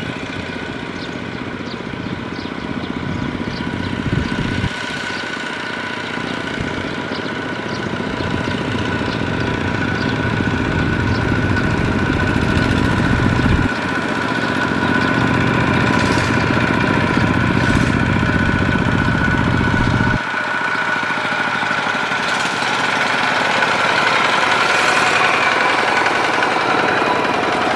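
Single-cylinder diesel engine of a two-wheel walking tractor running steadily while it pulls a loaded trailer, its tone shifting suddenly twice.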